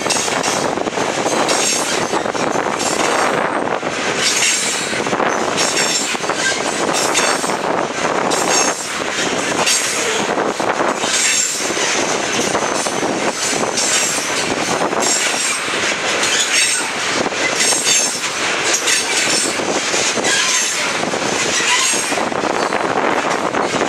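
Freight train tank cars rolling past, steel wheels clattering on the rails, with a high-pitched wheel squeal that comes and goes every second or two.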